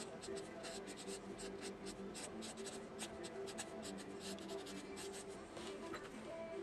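Pen drawing on paper: a fast run of short, scratchy strokes as hair lines are inked, over a faint steady hum.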